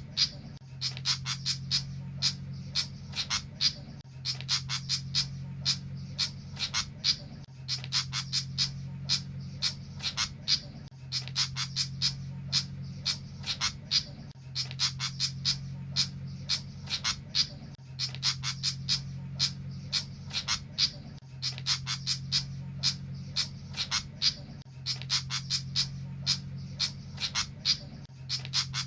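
Rapid runs of sharp clicking, chattering bird calls over a steady low hum, the same pattern coming round again about every three and a half seconds.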